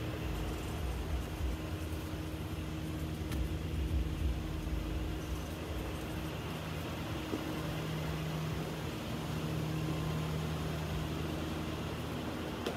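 Steady low hum with a droning tone that grows a little stronger about halfway through, over a low rumble that is heaviest near the start.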